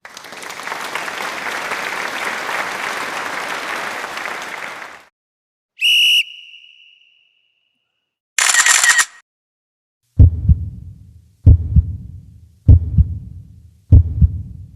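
A run of separate sound effects: a steady hiss for about five seconds, a short high beep, a brief shrill burst, then four deep double thumps about a second and a quarter apart, in the rhythm of a heartbeat.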